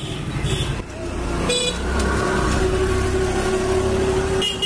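A motor vehicle passing on the road: a low rumble with a steady horn-like tone held for a couple of seconds in the middle.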